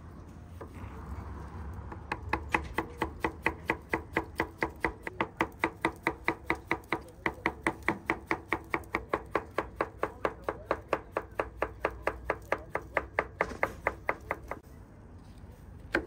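Knife chopping fast and evenly on a cutting board, about four to five strokes a second, each stroke with a short ringing knock. The chopping starts about two seconds in and stops near the end, followed by one more sharp knock.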